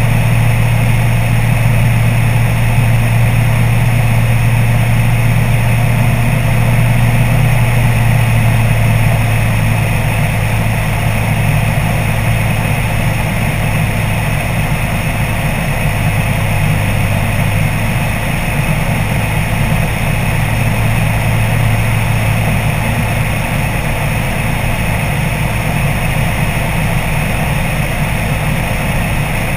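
Microlight trike's pusher engine and propeller droning steadily in flight, with wind noise. About a third of the way in, the engine note drops slightly and it gets a little quieter.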